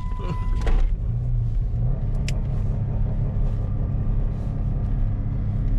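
Dodge Nitro's V6 engine running steadily under light throttle, a low drone heard from inside the cabin while the SUV is driven, with engine oil fed to it in place of gasoline.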